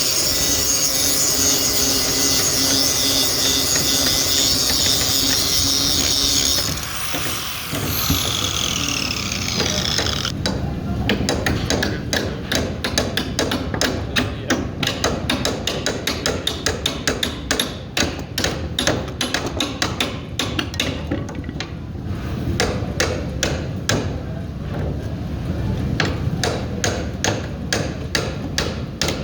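Grinder running on metal, then switched off and winding down with a falling whine. From about a third of the way in, many quick hammer knocks on metal, several a second.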